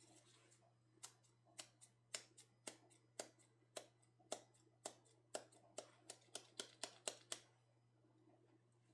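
A small paint pot with a filter cup on top being tapped repeatedly: about twenty light, sharp knocks, roughly three a second and quickening toward the end. The tapping drives thinned acrylic paint down through the filter.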